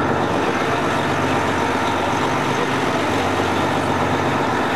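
Tour bus engine and road noise heard from inside the cabin: a steady, even drone with a low engine hum.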